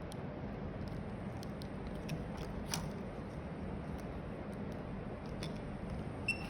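Scattered light clicks and taps from an item and its packaging being handled, over a steady low hum. One sharper click comes a little before the middle, and a short high ping comes near the end.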